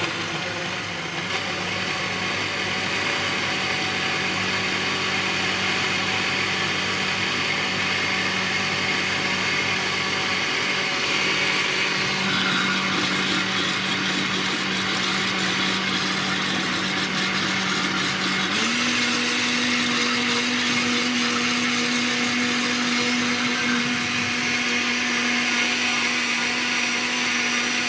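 Electric kitchen blender running steadily with a motor whine, stepping up to a higher speed about two-thirds of the way through.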